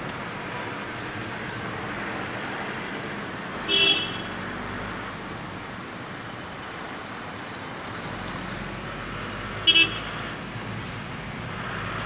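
Steady road traffic noise in slow city traffic, broken by two short vehicle horn toots: one about four seconds in and a quick double toot near the end.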